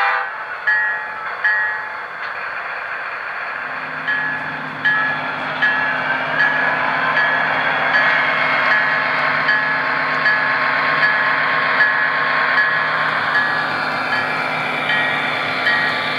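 Locomotive sound from a model Amtrak F40 diesel: its bell dings steadily, a little more than once a second. About three and a half seconds in, a steady diesel engine hum comes in under the bell as the train moves off.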